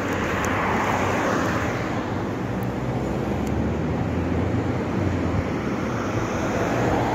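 Road traffic on a busy multi-lane city road: a steady rush of cars and their tyres passing. One car goes by near the start, and a low engine hum swells in the middle.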